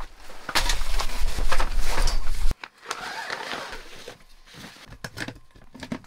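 A folding Teton Sports camp cot being set up: its fabric and metal frame rustle and knock for about two seconds. The sound then drops off abruptly to quieter handling, with a few clicks near the end as a leg lever is worked.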